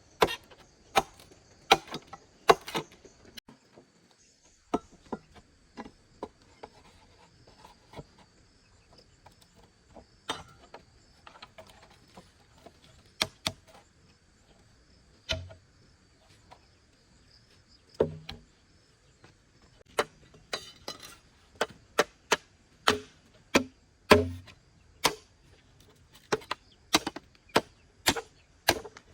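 A blade chopping bamboo: sharp, irregular strikes, sometimes in quick runs and sometimes with pauses of a second or two between them.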